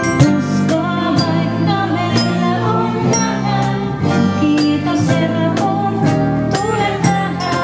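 Live band playing a gospel song: a woman sings lead over electric bass and a cajón beat of about two strokes a second, with short, high glockenspiel notes ringing above.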